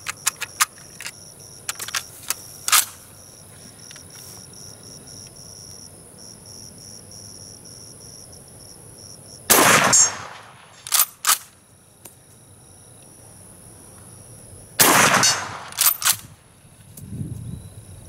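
Two rifle shots about five seconds apart from a Schmidt-Rubin 1889 firing GP90/23 rounds. About a second and a half after each shot come two sharp metallic clicks as the straight-pull bolt is drawn back and run home. A few light clicks of handling the rifle come in the first three seconds.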